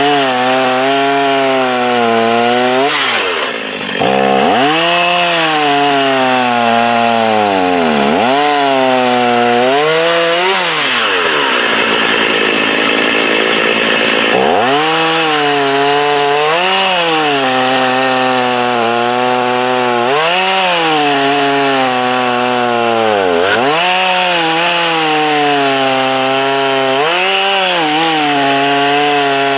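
Gas chainsaw cutting through a log, running hard: its engine pitch sags under load and picks back up again and again, with a stretch of higher revving in the middle.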